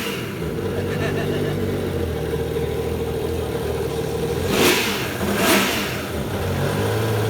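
2017 Yamaha jet ski engine running out of the water, fed cooling water through a hose. It holds a steady note, with two short, louder bursts about four and a half and five and a half seconds in.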